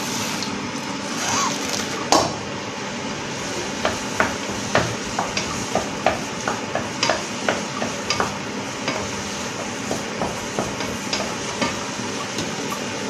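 A kitchen utensil knocking and clinking in a small metal pot, in a run of light, irregular clicks about twice a second, with one sharper knock about two seconds in, over a steady background hum.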